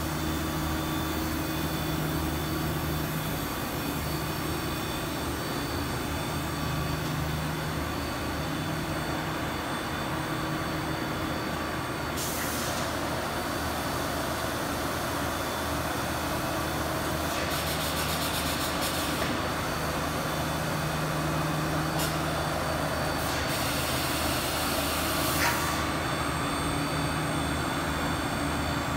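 Steady hum and drone of an HDPE/LDPE blown-film extrusion line running, with motors and winder turning and a few faint high whines on top. Several short hisses break in, the longest lasting about two seconds.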